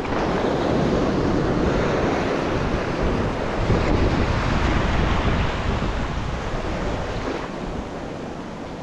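Sea surf surging and washing over rocks at the shoreline, a loud continuous rush that eases off near the end, with wind buffeting the microphone.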